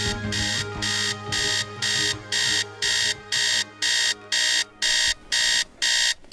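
Electronic alarm clock beeping, a harsh buzzy beep about twice a second, growing louder over the first two seconds while the last of the music fades out underneath.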